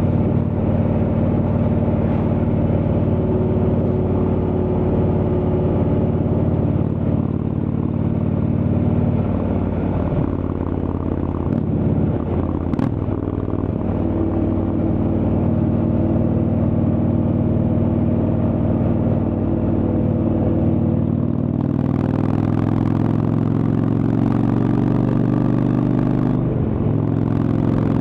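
Indian Chieftain's Thunderstroke V-twin engine running through a Freedom Performance exhaust while the bike is ridden at road speed. The engine note dips around ten seconds in, then climbs steadily, with another change in pitch near the end.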